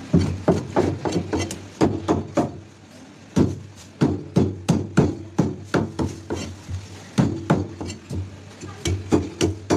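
Fish scaler and cleaver scraping the scales off a whole black snapper on a wooden chopping block: a quick run of sharp strokes, two or three a second, with a short pause about three seconds in.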